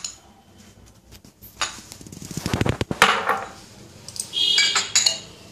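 A metal spoon scraping and tapping against a glass bowl while scooping cornstarch: a quick run of scrapes about two seconds in ends in a sharp tap, followed by a brief ringing clink of glass.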